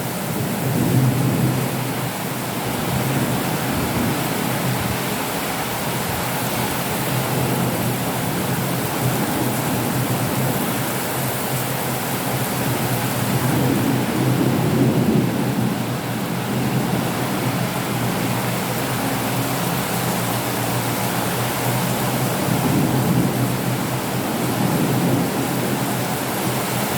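Steady heavy rain with thunder rumbling low in the background, the rumbles swelling a few times, most strongly around the middle and again near the end.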